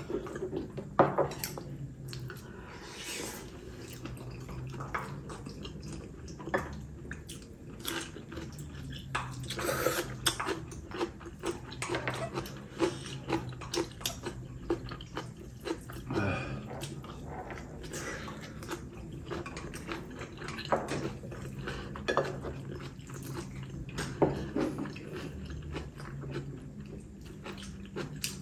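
People eating spicy braised chicken stew at close range: wet chewing and slurping, with chopsticks and a spoon clicking against ceramic bowls many times. A low steady hum runs underneath.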